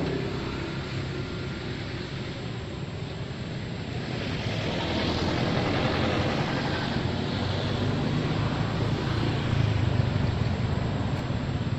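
Steady low engine rumble with a hiss, growing louder about four seconds in.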